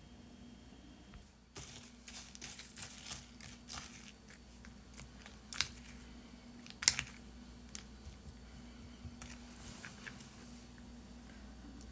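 Crinkling, rustling handling noise with scattered sharp clicks, starting about a second and a half in, over a faint steady hum.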